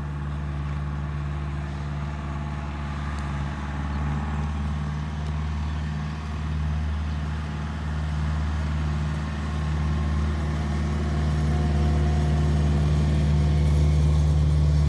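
A steady low engine hum, like an idling motor, that gets gradually louder over the second half.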